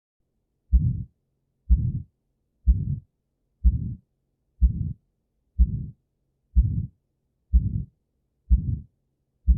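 Recorded heart sounds of aortic stenosis: a slow, regular heartbeat about once a second, nine beats, each first heart sound followed by a systolic ejection murmur that grows louder and then less loud.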